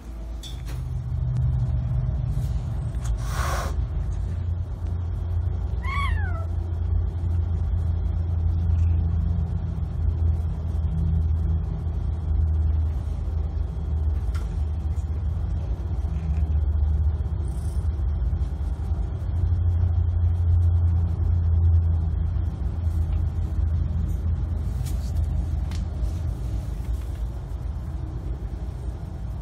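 A cat purring steadily while being stroked, a continuous low rumble. About six seconds in the cat gives one short meow that falls in pitch, and there is a single click a few seconds before it.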